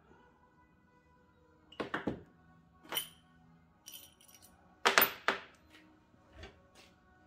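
Metal engine parts clinking and knocking as they are handled and set down, a few sharp strikes with the loudest about five seconds in, over quiet background music.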